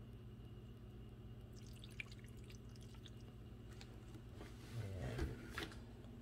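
Liquid dripping and ticking from a tipped bottle onto chicken feet in a slow cooker crock, faint and scattered, over a steady low hum. About five seconds in, a short louder cluster of knocks and rustles.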